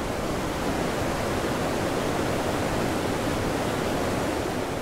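Steady, even rush of the Gullfoss waterfall, a large volume of water falling into a canyon.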